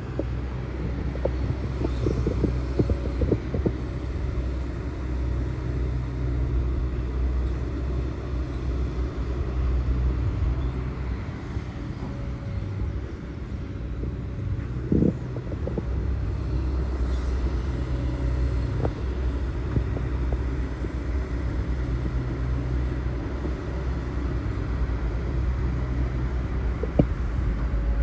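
Hitachi Zaxis hydraulic excavator working: its diesel engine runs steadily, its note swelling and easing every few seconds as the hydraulics take load. Sharp knocks come in a cluster early on and singly near the middle and near the end.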